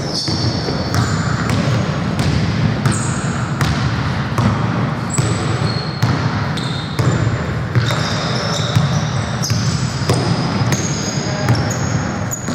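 Basketball bouncing on a hardwood court in repeated sharp thuds during play, with short high sneaker squeaks from players' shoes on the wooden floor.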